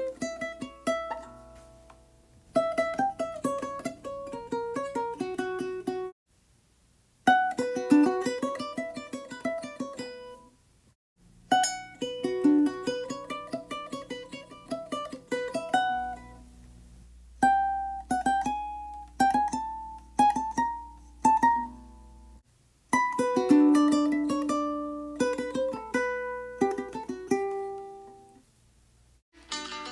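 Requinto guitar picking a bolero requinto melody: quick single notes and two-note runs in thirds, in several short phrases with brief pauses between them.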